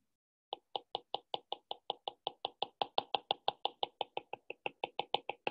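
Stylus tapping quickly and steadily on a tablet, about five or six taps a second, starting half a second in: the pen dotting in data points.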